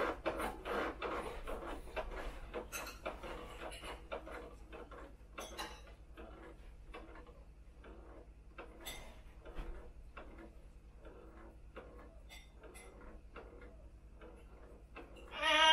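Faint, irregular clicks and taps that fade over the first few seconds. Right at the end, a loud wailing cry begins: an adult imitating a crying baby.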